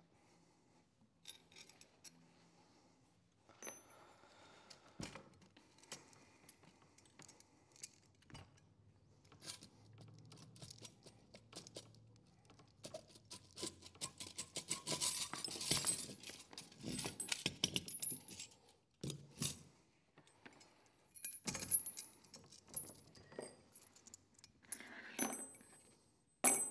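Steel internal parts of a GM G80 locking differential clinking, rattling and scraping as the carrier is emptied by hand and the parts are set down on the bench. The clinks are scattered, busiest in the middle, with a sharp clink near the end.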